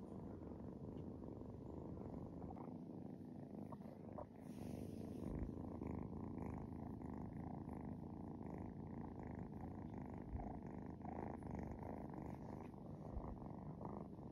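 Black-and-white kitten purring steadily while being stroked.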